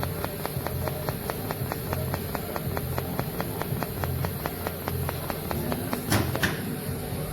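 Rapid even mechanical ticking, about seven ticks a second, over a low hum; the ticking stops about six seconds in and two sharp knocks follow close together.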